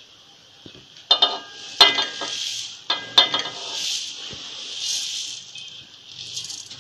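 Roasted flattened rice (poha) being poured from a metal plate into a large aluminium kadhai: a dry rushing, pattering hiss that swells and eases as the flakes slide in. The plate knocks against the pan with a ringing metal clink about a second in, again near two seconds, and once more around three seconds.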